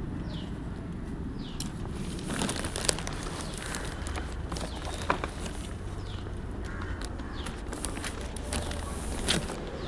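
Outdoor ambience with a steady low hum, a bird's short falling chirps, and a few sharp clicks, the loudest about three seconds in, five seconds in and near the end.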